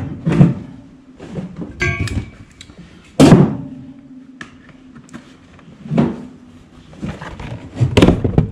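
Metal knocking and clanking on a workbench as tools and metal are handled: several separate knocks, the loudest about three seconds in, followed by a low ringing hum that fades over about two seconds.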